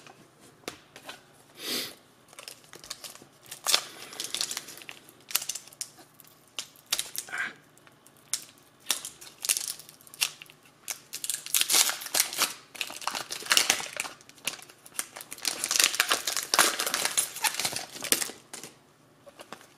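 Foil wrapper of a Pokémon XY Evolutions booster pack crinkling and tearing as it is pulled open by hand, in irregular crackles that grow dense in the second half.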